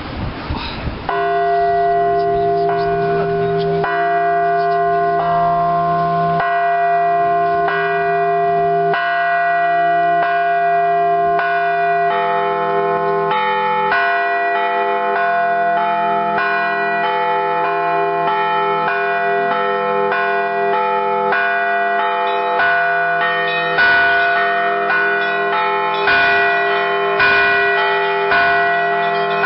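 Church bells rung for Easter: several bells of different pitch struck in a quick, repeating rhythm over the hum of the larger bells, starting about a second in. More bells join about twelve seconds in, and near the end a few heavier strokes stand out.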